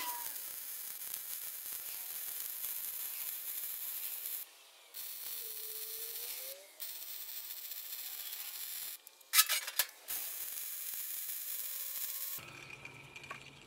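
Arc welding on steel plate: the arc runs with a steady crackling hiss, stopping briefly about four and a half seconds in and again near seven as the bead is broken and restarted. It stops for about a second around nine to ten, with a short sharp burst as the arc is struck again, and cuts off about twelve seconds in.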